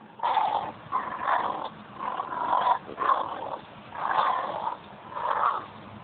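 Staffordshire bull terrier growling during tug-of-war on a stick, in about six rough bursts roughly a second apart.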